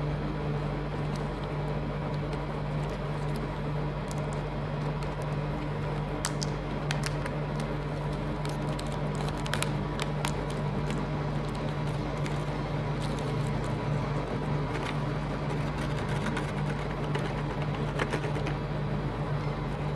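Metal spatulas tapping and scraping on a rolled-ice-cream freezing plate, in scattered clicks that come thicker about a third of the way in and again near the end, over a steady low machine hum.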